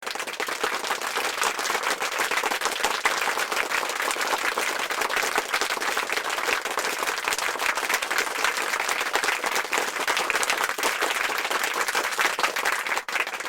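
Applause sound effect: a crowd clapping densely and steadily, starting abruptly out of silence.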